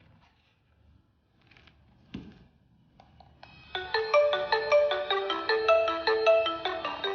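Tmezon MZ-IP-V716TW video intercom ringing with a marimba-like call melody of quick stepped notes, which starts about three and a half seconds in and keeps going. A short click comes a little before it.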